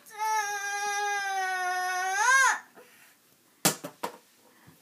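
A young child's long wailing cry on one held pitch, swelling and rising at the end before falling off, followed about a second later by a few sharp knocks.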